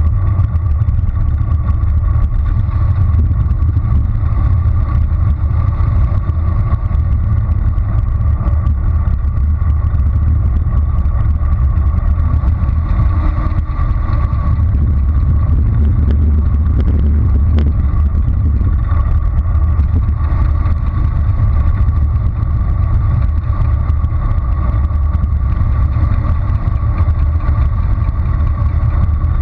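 Steady, loud wind rush and tyre rumble picked up by a bicycle-mounted action camera rolling along a paved road, with a faint constant hum above the rumble.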